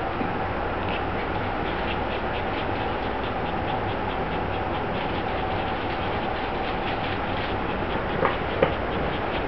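A litter of 5-day-old puppies nursing on their mother: a fast run of faint soft clicks and squeaks, several a second, over a steady background hum, with two short louder sounds near the end.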